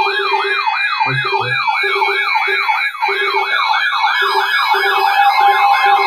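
Electronic siren alarm from weather alert radios: a fast yelping sweep rising over and over, about three times a second, layered with a higher warbling tone and short intermittent low beeps.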